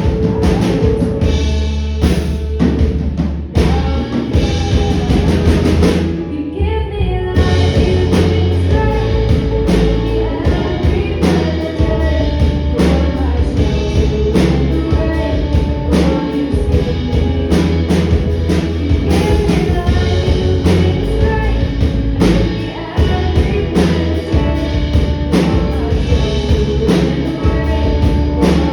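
Live band playing a song with singing, drum kit and bass, at a steady beat. About six seconds in, the high end of the sound briefly drops out, then the full band comes back in.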